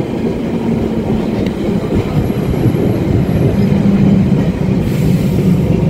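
1934 English Electric boat tram running along the track: a steady rumble of steel wheels on the rails with a low hum, growing a little louder toward the end.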